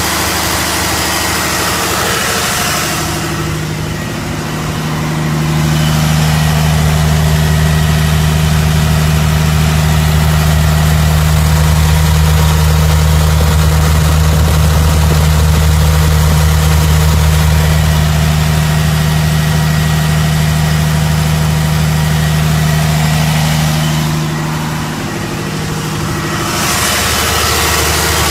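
1984 Deutz six-cylinder air-cooled diesel engine, in a portable air compressor, running steadily at idle. It gets louder and deeper from about six seconds in and eases back about four seconds before the end.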